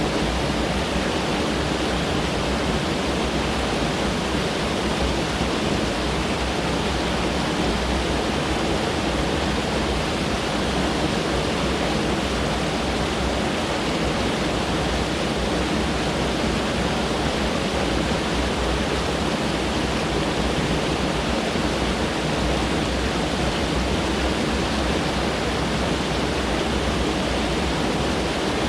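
Mountain stream rushing over rocks, a steady unbroken wash of water.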